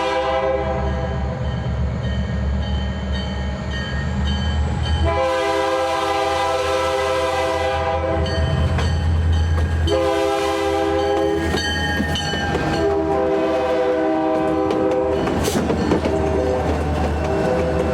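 Portland & Western diesel freight locomotive sounding its multi-note air horn in a series of blasts: one ending about a second in, a long one about five seconds in, a short one about ten seconds in, then a long one and shorter ones near the end, the long-long-short-long pattern of a grade-crossing signal. Under the horn runs the steady low rumble of the diesel engine, with wheel clatter from the passing train in the later part.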